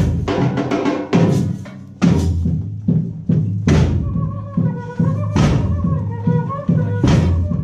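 Background music with a steady percussion beat over a bass line.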